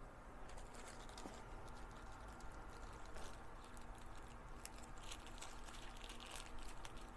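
Faint rustling and small clicks of plastic packaging and cables being handled, a little busier in the second half, over a low steady room hum.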